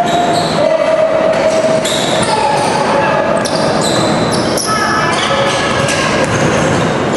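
Basketball shoes squeaking on a gym floor, many short overlapping squeaks at different pitches, with a basketball being dribbled, echoing in the gym.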